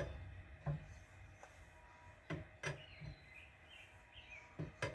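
A tire iron is fitted onto wheel lug nuts and pulled to check they are tight. It makes a handful of short metal clinks and knocks at irregular intervals.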